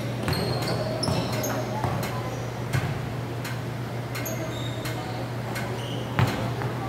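A basketball bouncing on a hardwood gym floor as it is dribbled, several knocks with one loud bounce about six seconds in, with short high sneaker squeaks and a steady low hum in a large, echoing gym.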